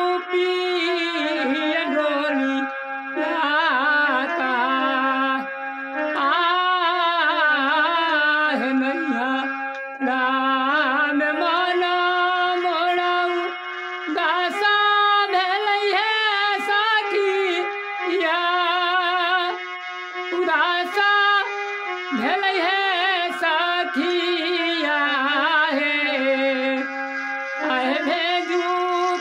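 A man singing a samdaun, a farewell folk song, in phrases of long, wavering notes with heavy vibrato, over a steady held drone in the accompaniment.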